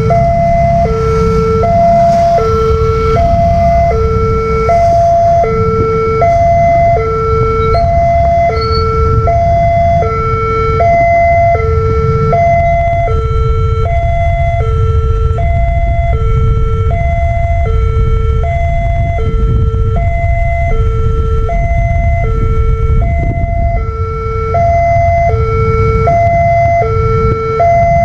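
Indonesian railway level-crossing warning siren from a pole-mounted horn loudspeaker, switching steadily between a lower and a higher note about every two-thirds of a second: the crossing is closed for an approaching train. A steady low rumble runs underneath.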